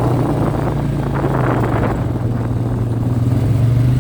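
ATV (quad) engine running steadily while riding, a constant low drone, with some rougher rattling noise over the first two seconds.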